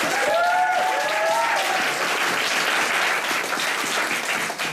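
Audience applauding steadily, with a few voices cheering near the start.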